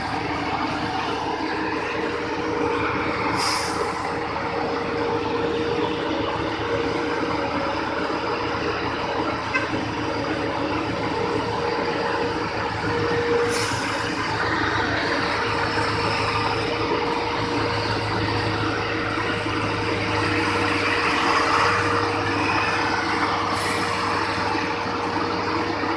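Heavy road-construction machine's diesel engine running steadily, with a constant drone and a short hiss three times, about ten seconds apart.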